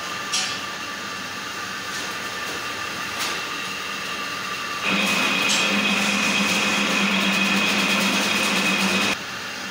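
Steady machinery hum with a high whine. A louder running layer switches on about five seconds in and cuts off suddenly near the end.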